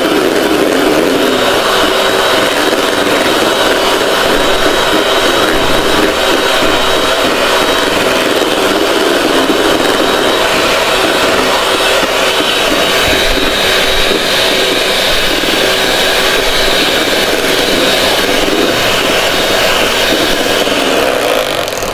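Electric hand mixer running steadily with a constant whine, its beaters whipping cream to stiff peaks; the motor cuts off at the very end.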